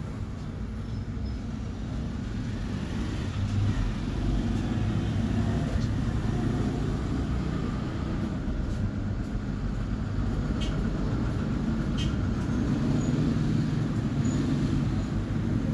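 Steady low rumble of background noise, like traffic or a running vehicle, with a couple of faint clicks about two-thirds of the way through.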